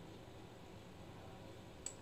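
Near silence: a faint steady hiss, with one small click near the end.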